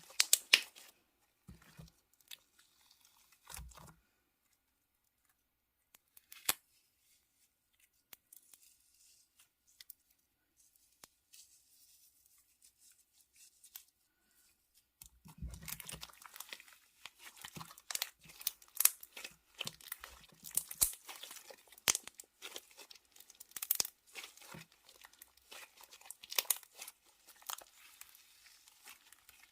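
Slime being squeezed and stretched by hand, giving sticky crackling and popping clicks. It falls mostly quiet for several seconds in the first half, then crackles densely again from about halfway.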